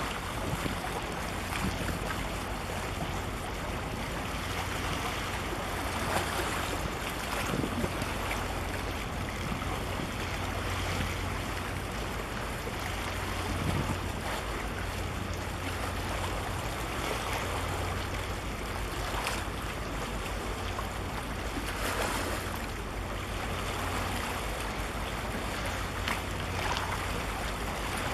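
Wind buffeting the microphone over the wash of water, with a steady low rumble underneath; no ship's horn is sounding.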